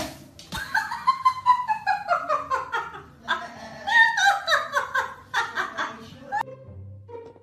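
High-pitched laughter: two long runs of quick 'ha-ha' bursts, each run falling in pitch. It cuts off sharply about a second before the end, and faint music follows.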